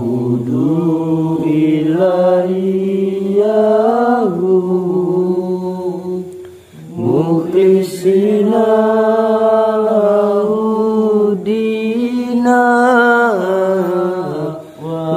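A single voice chanting in long, drawn-out held notes that step up and down in pitch, pausing for breath about seven seconds in and again near the end.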